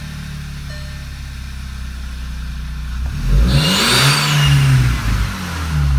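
VW Mk6 GTI's turbocharged four-cylinder idling, then revved once about three seconds in and falling back to idle. A high-pitched squeal rises and falls with the revs; with the car also not building boost, the owner suspects a bad turbo.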